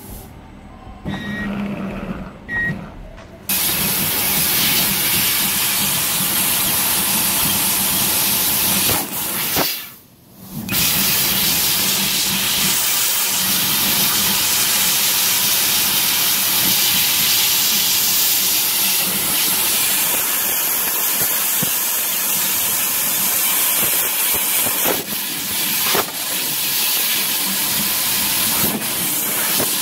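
Fiber laser cutting head blowing assist gas through its nozzle while cutting sheet metal: a loud, steady hiss that starts a few seconds in, stops for about a second near the middle between cuts, and then runs on.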